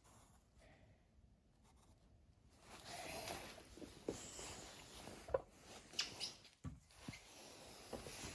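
A child drawing on paper: scribbling strokes rub across the page, starting about three seconds in, with a few sharp taps of the drawing tool among them.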